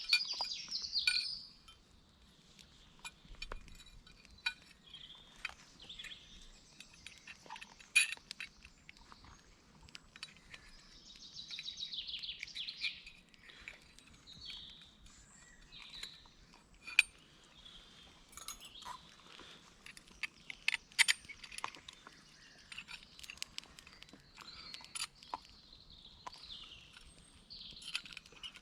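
Woodland birds singing in short phrases, with scattered light clicks and metal clinks of gear being handled.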